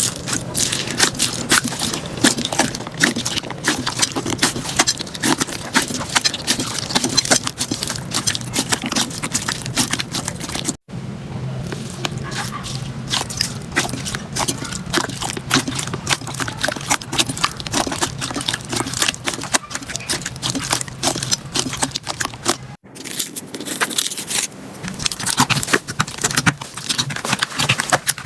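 Slime being squeezed and poked by hand, a dense run of small crackling and popping clicks. The sound stops dead for an instant twice, about eleven and twenty-three seconds in.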